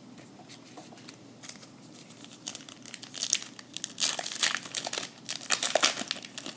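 Crinkling and tearing of a baseball card pack's plastic wrapper as the pack is opened by hand. The crackling starts about a second and a half in and is loudest near the end.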